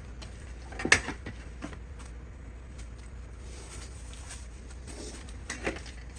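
Quiet handling noises in a workshop, with one sharp click about a second in and a softer knock near the end.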